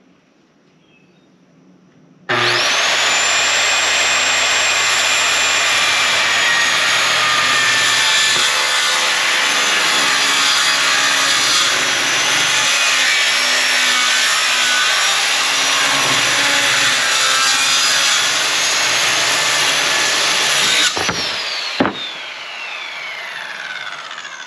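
Circular saw cutting plywood roof decking in one long continuous pass, starting suddenly about two seconds in. Near the end the trigger is released and the blade spins down with a falling whine.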